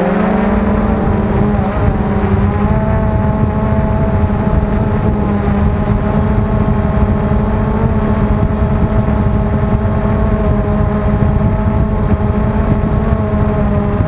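DJI quadcopter drone's motors and propellers heard from on board: a steady multi-tone hum whose pitch steps up at the start and then holds, over a low rushing noise.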